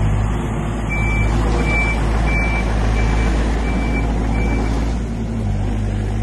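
Yanmar VIO80 excavator's diesel engine running steadily while its travel alarm gives six short, high-pitched beeps at an even pace as the machine tracks, stopping about four and a half seconds in.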